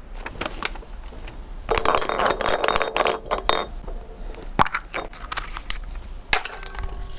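Paper lots rustling and crinkling as slips are handled at a glass draw bowl, with light clicks and scrapes. The busiest rustling comes about two seconds in and again near the end.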